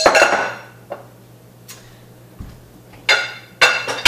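Glass bowls knocking together and clinking as they are handled: a sharp knock at the start that rings briefly, a few light ticks, then more ringing knocks in the last second, the loudest at the very end.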